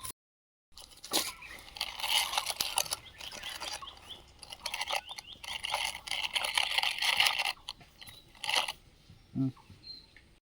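Small rocks crunching and rattling in long busy spells full of little clicks, as they are scooped and poured by a toy excavator and toy dump truck.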